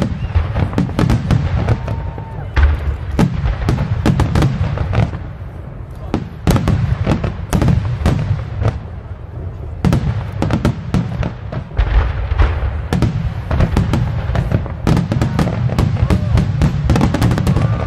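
Aerial fireworks shells bursting overhead in a dense, rapid series of bangs and deep booms, with a few short lulls between volleys.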